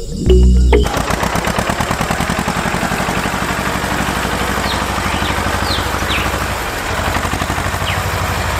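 A tractor engine running with a steady, rapid chugging beat, starting about a second in after a brief bit of music. A few faint short chirps sound over it in the middle.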